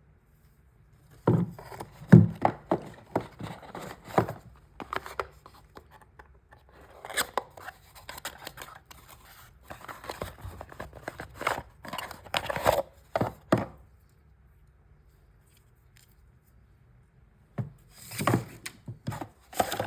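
Product packaging being handled and opened: a run of clicks, scrapes, taps and rustles of cardboard and plastic. They stop for a few seconds and start again near the end.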